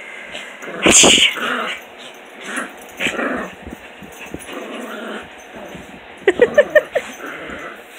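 Puppies play-fighting, growling and scuffling, with a sudden loud burst about a second in and a quick run of five short yips near the end.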